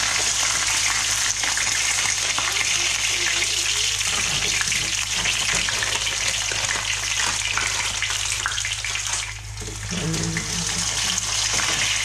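Chicken popcorn nuggets sizzling and crackling in hot oil in a frying pan, with a low steady hum underneath. The sizzle dips briefly about nine seconds in.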